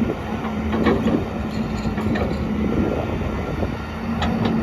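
XCMG XE210CU excavator's Cummins diesel engine running at a steady, even pitch, with a few sharp knocks from the machine at about one, two and four seconds in.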